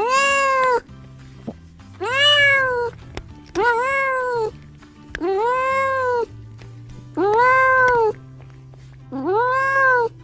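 Domestic cat meowing six times, each meow under a second long with a rise and fall in pitch, spaced about two seconds apart, over quiet background music.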